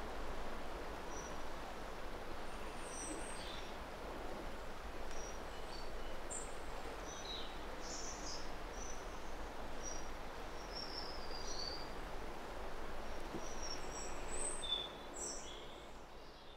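Outdoor ambience of birds chirping: short high calls come and go throughout over a steady background hiss, fading out near the end.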